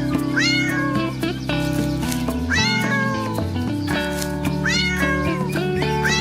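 A cat meowing about four times, each meow rising then falling in pitch, over background music with sustained notes.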